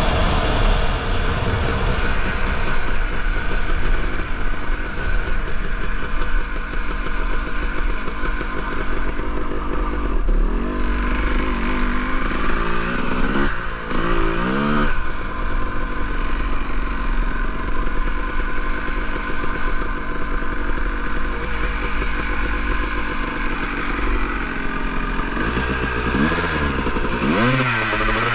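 Honda CR250R two-stroke single-cylinder dirt bike engine running under way, with the revs rising and falling several times around the middle and again near the end.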